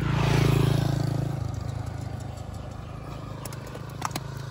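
A low, steady engine hum, louder and fuller in the first second and a half before settling back, with a couple of sharp clicks about four seconds in.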